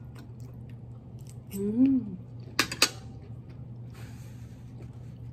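Metal fork set down on a plate: two sharp clinks close together about two and a half seconds in, just after a brief hummed 'mmm'.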